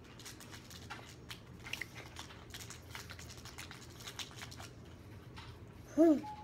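A young boy chewing a bite of sushi: faint scattered clicks and mouth noises, then a short hummed "mmm" from him near the end.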